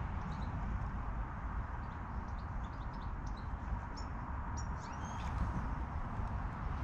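Small birds chirping faintly several times, short high calls with a few quick rising and falling notes, over a steady low rumble.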